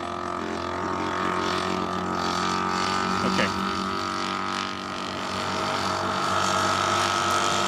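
Engine of a large remote-controlled model aeroplane running steadily in flight, holding an even pitch.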